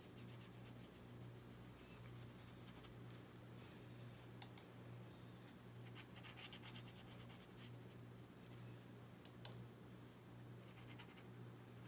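Fine watercolour brush faintly stroking a damp photographic print, over a low steady hum. Two pairs of small sharp clicks, one a little before the middle and one later.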